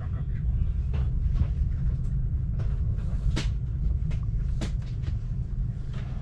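Passenger train running along the track, heard from inside the carriage: a steady low rumble with scattered sharp clicks and knocks.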